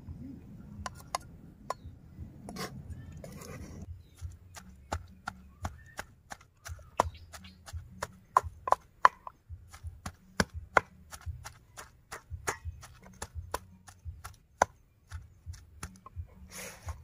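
Wooden pestle pounding chopped pork in a heavy mortar: a steady run of knocks with dull thuds beneath, about two to three a second, stopping a couple of seconds before the end.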